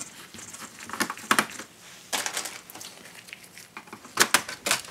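Sharp plastic clicks and light scraping from hands working on the base access panel of a Dell Inspiron 5720 laptop, taking out its screws and loosening the panel. The loudest three clicks come close together near the end.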